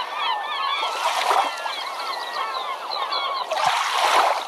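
A flock of birds calling, many short overlapping chirps and honks, with two louder rushing, splashing noises, one about a second in and a longer one near the end.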